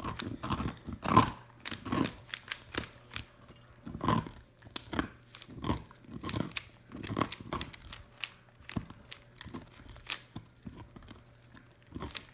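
Plastic Rubik's-style puzzle cube being turned quickly by hand: a rapid, irregular run of clicks and rattles as its layers snap round.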